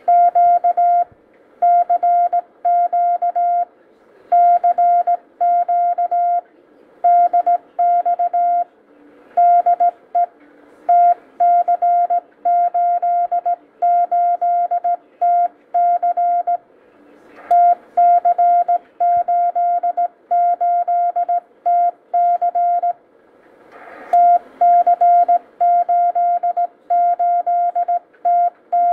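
Morse code sent by hand on a brass straight key: a steady tone of about 700 Hz keyed on and off in dots and dashes, in groups with short pauses between them, sending an amateur-radio CQ call.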